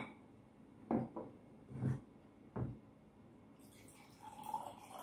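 A few short knocks of glassware handled on a table, then water poured from a glass pitcher into a drinking glass, starting about three and a half seconds in.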